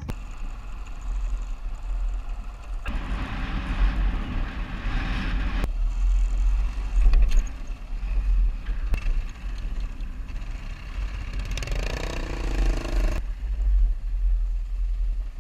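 Adventure motorcycle riding slowly over a rough grass field, its engine under heavy wind rumble on the camera's microphone, with a short rise and fall in pitch about twelve seconds in.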